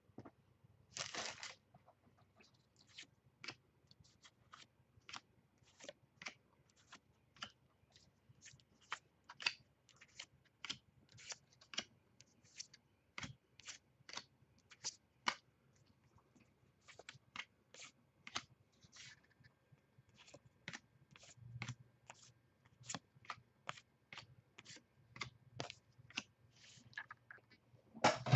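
Baseball trading cards being flipped through one at a time by hand: a short rustle about a second in, then soft, sharp card flicks at about two a second with a few brief pauses, ending in a louder rustle.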